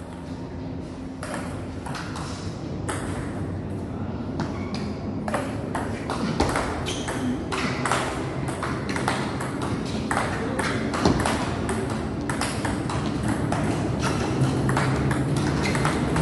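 Table tennis rally: the ball clicking sharply off the bats and the table in quick alternation, a steady run of ticks.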